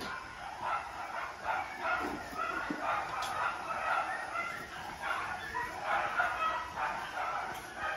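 Young puppies, about eight to ten weeks old, making small high yips and whines, scattered and overlapping, as they play together.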